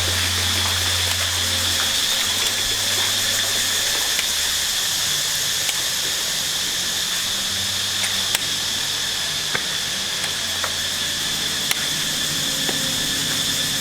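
A steady, high-pitched drone of insects buzzing, with a few faint clicks.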